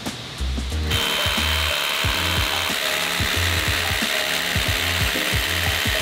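Hammer drill boring into a concrete floor through a post's steel base plate, with a vacuum nozzle pulling the dust away at the bit: a loud, steady, hissing run with a thin high whine that starts about a second in. Background music with a steady beat plays underneath.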